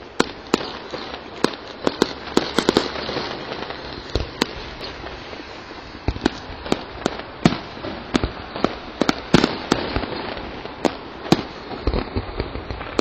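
Fireworks display: aerial shells bursting in a quick, irregular series of sharp bangs, roughly two a second, over a steady background of noise.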